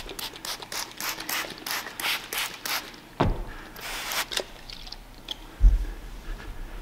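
A trigger spray bottle hissing out a quick run of short sprays of ceramic coating, then a longer one, while a microfiber towel rubs over the truck's painted panel. A dull thump, the loudest sound, about five and a half seconds in.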